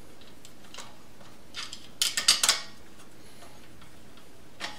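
Sharp metal-on-metal clicks and clinks as locking pliers are set over a metal drill guide block held against an exhaust manifold flange: a few light taps, a quick cluster of five or so clicks about two seconds in, and one more click near the end.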